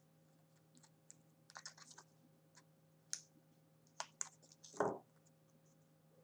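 Faint, scattered small clicks and paper rustles from hands handling a small piece of scrapbook paper and peeling the backing off its double-sided tape, with the loudest cluster a little after four seconds in.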